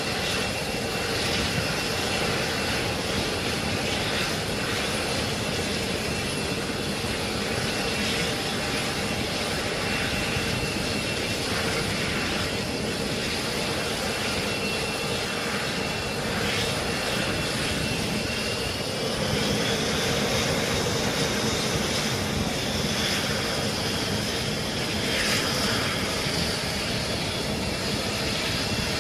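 Jet engines running steadily on an aircraft carrier's flight deck, a continuous rush of jet noise with a thin high whine that climbs in pitch a little past halfway.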